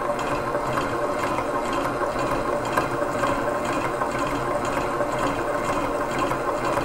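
Innofood KT7600 stand mixer running steadily at speed 6, its motor humming while the silicone beater creams butter and sugar in the bowl.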